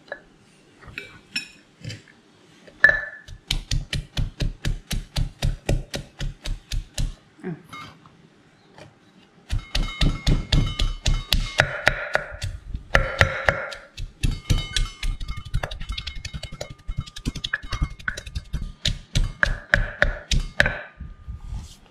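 Wooden pestle pounding garlic and Thai chilies in a clay mortar, a steady run of thuds about four a second. After a pause of about two seconds the pounding resumes with green beans added.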